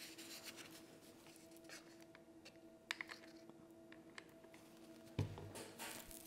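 Faint handling noises: light taps and small clicks as a glued-on bunny ear cutout is pressed and held in place on the craft piece, over a low steady hum. A soft thump comes about five seconds in, and a sharper click at the very end.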